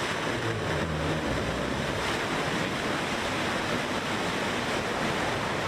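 New Shepard booster's BE-3 liquid-hydrogen/liquid-oxygen rocket engine firing just after ignition, before liftoff: a steady, loud rushing roar.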